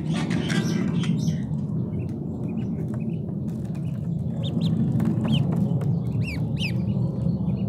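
Ducklings peeping: several short, high, falling peeps in the second half, over a steady low rumble.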